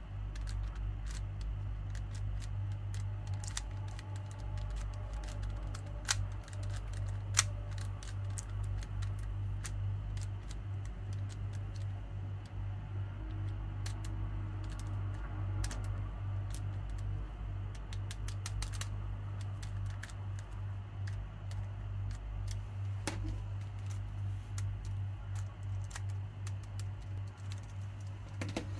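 GAN 12 Maglev 3x3 speedcube being turned by hand: a long run of light, quick clicks and clacks as the layers turn and snap into place, with two louder clacks about six and seven seconds in. A steady low hum lies underneath.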